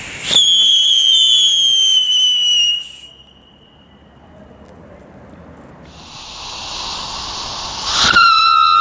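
ARS Pyro Xiuladors ground-whistler fireworks, which whistle as they skid along the ground. One starts with a sudden pop and gives a loud, high whistle that slowly sinks in pitch, then cuts off after about two and a half seconds. A hiss then swells, and near the end a second whistler bursts into a lower-pitched whistle.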